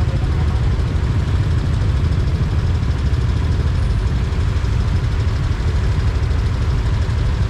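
Steady low rumble of a vehicle on the move: engine and road noise, even throughout with no sudden events.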